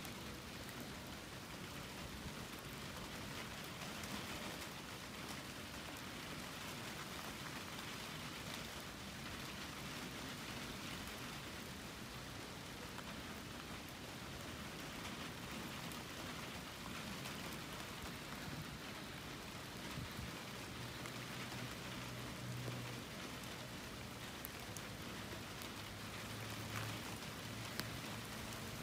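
Light rain falling steadily, an even hiss with scattered faint drop ticks.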